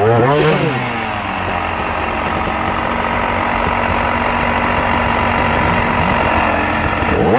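Dirt bike engine idling steadily, with a brief voice in the first second.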